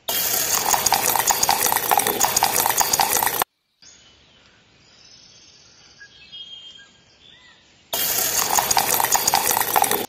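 Wet concrete sloshing and pouring from a toy cement mixer's tilted drum, a rhythmic churning noise in two stretches. The first cuts off abruptly after about three and a half seconds and the second starts about eight seconds in, with faint quiet in between.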